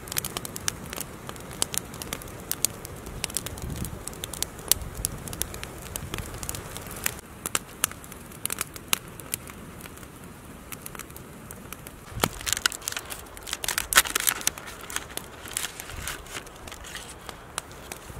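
Wood campfire of sticks and split logs crackling, with sharp irregular pops and a denser patch of crackling and crinkling about two-thirds of the way through.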